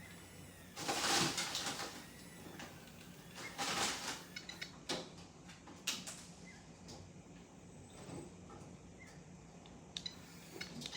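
Redcat Gen7 Pro RC crawler making scraping, rasping noises during a winch test: two bursts about a second long, then scattered sharp clicks, over a low steady hum.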